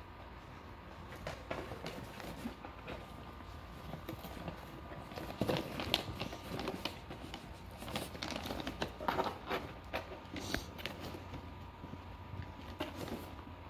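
Cardboard box rustling, scraping and crackling as a chihuahua noses into it and paws at it, in irregular scrapes that come more often after about five seconds.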